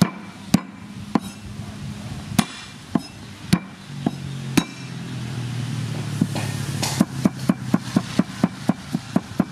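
Cleaver striking a thick wooden chopping block: single sharp whacks about every half second as garlic cloves are smashed, then, about six seconds in, quick even chopping at roughly four strokes a second as the garlic is minced.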